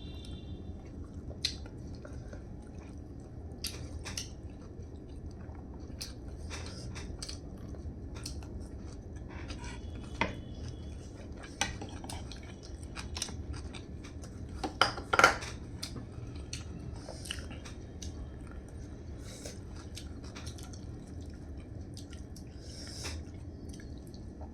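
Eating sounds: scattered clicks and clinks of utensils against a plate, with a louder clatter of dishes about fifteen seconds in, and soft chewing.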